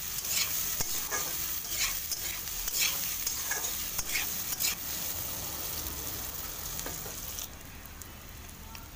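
Metal spatula scraping and stirring boiled baby potatoes frying in oil with spice powders in a kadai, over a steady sizzle, with repeated scrapes. The sizzle turns quieter about seven and a half seconds in.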